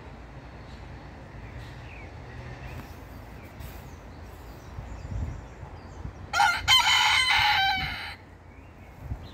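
Barnevelder rooster crowing once, a single cock-a-doodle-doo of about two seconds, beginning about six seconds in.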